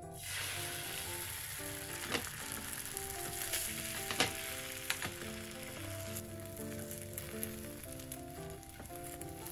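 Food frying in hot oil: a steady sizzle that starts suddenly at the outset, with a few sharp taps from a utensil.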